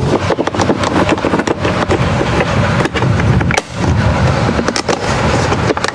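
Plastic interior door trim panel being pressed back onto a car door: a dense run of clicks and rattles as it is seated.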